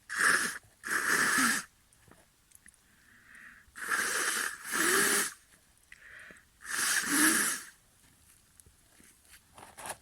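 A person taking three loud, wheezy breaths. Each is a quick breath followed by a longer one carrying a slight voiced sigh, about two to three seconds apart.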